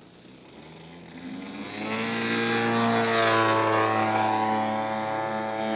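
Radio-controlled model aircraft's propeller engine running, growing louder over the first two seconds and then holding a steady pitch.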